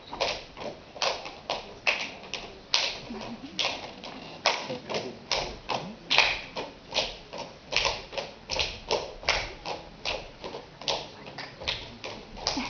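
Slovak boys' folk dance with hands slapping the boot tops and legs and boots stamping on a wooden stage, making a quick run of sharp smacks and thuds about two or three a second, with no music playing.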